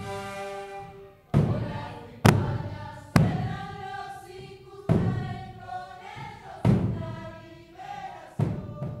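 A group of voices singing a ritual chant in a circle, with a deep hand drum struck about six times at an uneven, slow pace. The song is the traditional ritual music that participants describe as built in question and answer between two parts.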